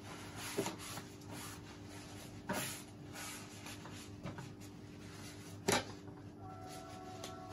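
Paper towel wiping a wooden cutting board, a soft rubbing with a few light knocks and one sharper knock about three-quarters of the way through, over a steady low hum.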